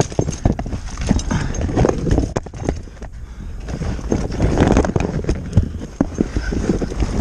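A person squeezing through a tight rocky mine passage: irregular knocks and clatter of loose stones, with scraping and bumping of body and gear against the rock.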